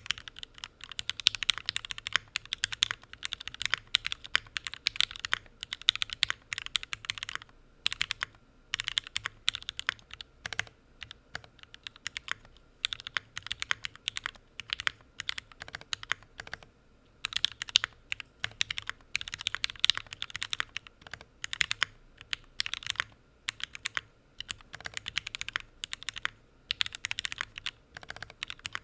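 Typing on a Day Off 60 custom mechanical keyboard with Tealios V2 linear switches and GMK keycaps in a thick aluminum gasket-mounted case: fast runs of deep, clacky keystrokes. Typing pauses briefly about a quarter of the way in and again just past halfway.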